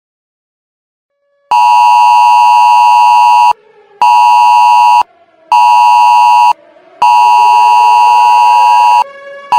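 Emergency alert tone for an approaching hurricane: a loud, harsh two-tone beep that starts after a second and a half of silence. It comes in blasts, one long, two short, then one long and one short, with a faint siren-like tone gliding slowly up and down beneath.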